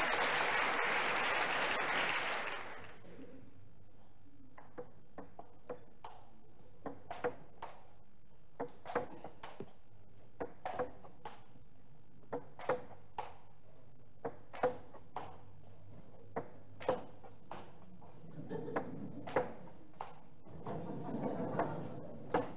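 Applause dying away, then a table tennis rally: the ball clicking back and forth off bats and table in an irregular rhythm, each hit with a short hollow ping. A brief swell of crowd noise comes near the end.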